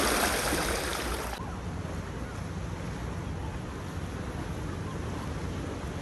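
Seawater rushing and swirling over shoreline rocks, loud for about the first second and a half, then dropping to a steady, quieter wash of the sea.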